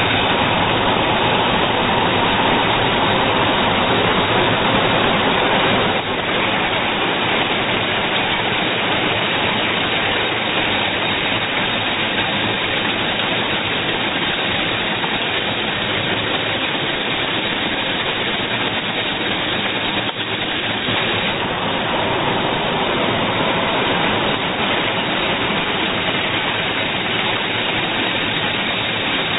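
Doosan Puma GT2100M CNC lathe running: a steady rushing noise that shifts slightly about six seconds in and again about twenty seconds in.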